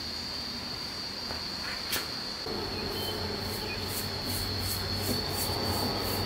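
Steady high-pitched insect trill, like crickets. A single click comes about two seconds in. From about three seconds, a soft, even swishing of roughly three strokes a second matches a paintbrush spreading stain over a wooden bench top.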